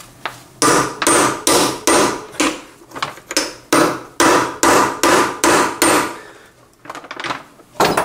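Hammer blows on a steel tube driver held over a gearbox shaft, tapping a part down onto the shaft: about a dozen sharp metallic strikes at roughly two a second, each ringing briefly, then a pause and two more blows near the end.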